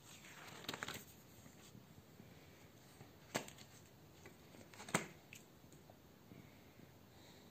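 Pages of a spiral-bound comic book printed on heavy 300 g paper being turned by hand: a paper swish in the first second, then two sharp taps about a second and a half apart as the pages are turned, with a few fainter ticks.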